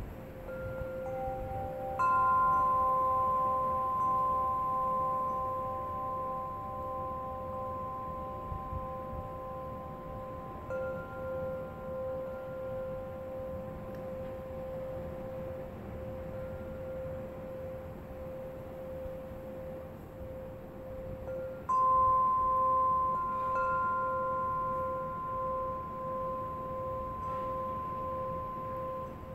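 Wind chime stirred by a breeze, sounding a few clear tones that ring on for many seconds. Two stronger strikes land about two seconds in and again about twenty-two seconds in, while the lowest tone wavers steadily, over a low, steady rush of noise.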